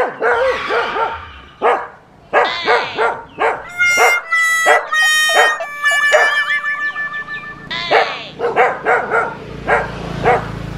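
A dog barking over and over in short sharp barks. A stretch of high held tones about four to seven seconds in breaks the barking, and the barks come again, fast, about three a second, in the last few seconds.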